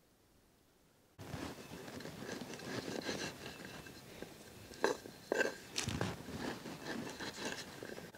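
Near silence for about a second, then a kitchen knife slicing dried apricots on a wooden cutting board: soft cutting and crunching, with several sharp knocks of the blade against the board, the loudest in the middle.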